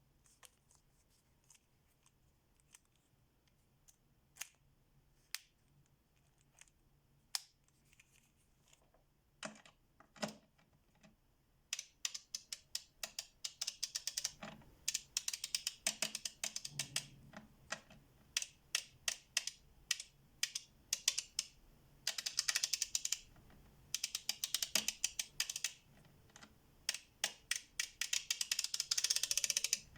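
FELO Ergonic K swivel ratchet's pawl clicking over its gear teeth as the handle is worked back and forth. There are scattered single clicks at first, then quick runs of clicks from about twelve seconds in, with fast, dense strings of clicks in the later part.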